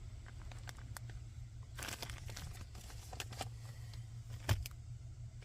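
Light rustling and small clicks of parts and packaging being handled, with a brief rustle about two seconds in and a single knock about four and a half seconds in, over a steady low hum.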